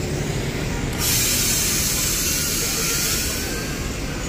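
Intercity coach's diesel engine idling, with a loud hiss of released compressed air that starts suddenly about a second in and fades out after a couple of seconds.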